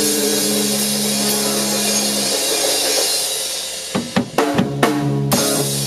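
Rock band's final chord and cymbals ringing and slowly fading, then a quick run of about six hits on a Yamaha drum kit near the end, the closing flourish of the song.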